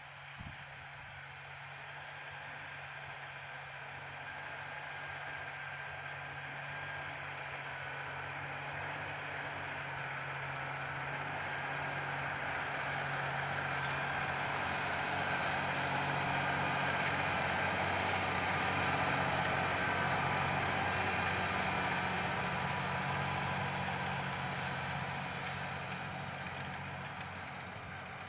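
Large John Deere tractor's diesel engine running under load as it pulls a disc cultivator through the field, with the steady rush of the working implement. It grows louder as the tractor approaches, is loudest about two-thirds of the way through, then fades as it moves away.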